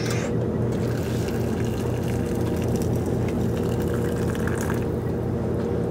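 Hot water running steadily from the tap of a stainless-steel electric water boiler into an instant noodle cup, over a steady low hum.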